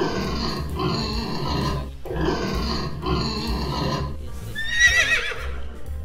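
Pigs squealing in two long, harsh calls, followed about five seconds in by a horse whinnying in one short, wavering, high-pitched neigh.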